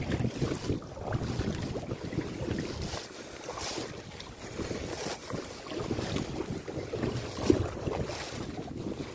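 Kayak paddle strokes dipping and splashing in sea water beside an inflatable kayak, with wind buffeting the microphone.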